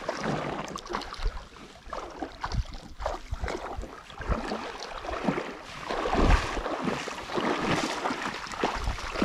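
Water splashing and sloshing in the shallows, with scattered clicks and knocks, while a hooked fish is brought in on light spinning tackle.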